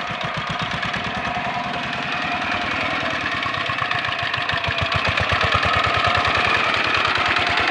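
Hand tractor's single-cylinder diesel engine running steadily under load, a fast even chugging beat, as it drags its cage wheels and harrow board through a flooded paddy.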